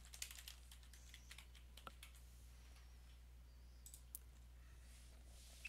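Faint computer keyboard typing: a quick run of keystrokes over the first two seconds, then a couple of separate clicks about four seconds in.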